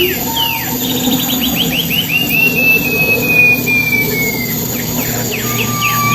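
Wild pipi perak songbird singing loud, clear whistles: quick runs of sharp downslurred notes, one long gently falling whistle held for about two seconds near the middle, and short rapid trills, over a steady low background hum.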